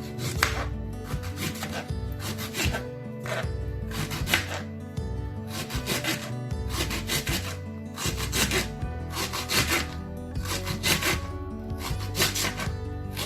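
Food being grated by hand, repeated rasping strokes about one to two a second, over background music.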